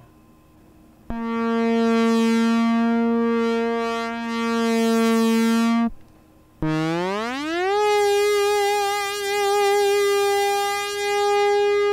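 Analog subtractive synthesizer voice played from a ribbon controller, its filter opened by finger pressure. One held note swells in loudness and brightness, then stops abruptly about six seconds in. A second note slides up in pitch over about a second and holds with a slight wobble, swelling again as the pressure changes.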